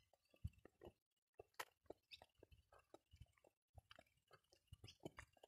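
Near silence, broken by faint, irregular small clicks and crackles.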